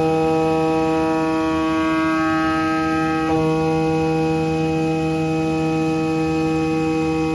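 CNC gasket cutting machine running with a steady, pitched mechanical hum. About two seconds in, higher overtones build up, then drop away abruptly at about three and a half seconds.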